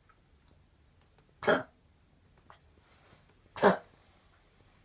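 Two short single coughs, about two seconds apart.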